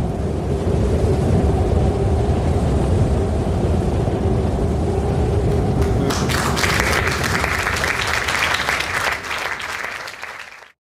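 Audience applause from about six seconds in, after a low, steady hum. The applause is cut off suddenly near the end.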